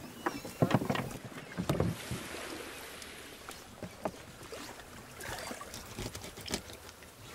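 A short wooden club knocking a fish against a boat's wooden gunwale to kill it: several sharp blows in the first two seconds, then a few lighter knocks as the fish is handled.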